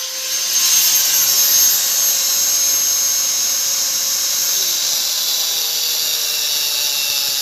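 Angle grinder with a thin cutting disc running at full speed and grinding steel off a brake caliper piston. It is a steady high whine with a grinding hiss, cutting the raised lip of the piston flat so it stops rubbing the brake rotor. The whine dips a little in pitch in the second half as the disc bites.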